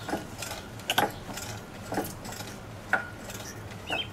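Rotted wooden privacy fence being rocked by hand, creaking and knocking about once a second as its loose boards and posts shift.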